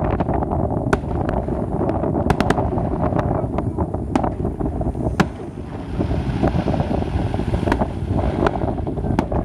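Aerial fireworks shells bursting, a dozen or so sharp bangs spread unevenly, with a steady rumble of wind on the microphone underneath.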